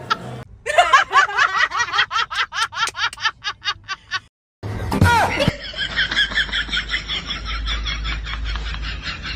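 Two meme laugh sound effects played one after the other. The first is a rapid run of laughs, about five a second, that grows fainter over about four seconds. After a brief silence, the second opens with a sudden falling sound and goes on as a fast, high-pitched giggling laugh over a low rumble.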